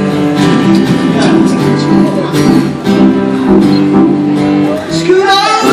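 Amplified acoustic guitar strumming chords in a live sound check, with a voice coming in near the end.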